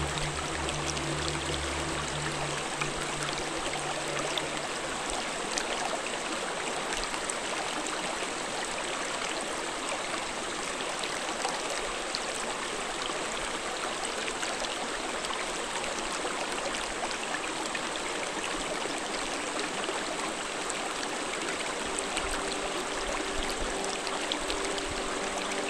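Shallow mountain stream flowing over rocks, a steady rush of water. Background music fades out in the first few seconds and returns faintly near the end.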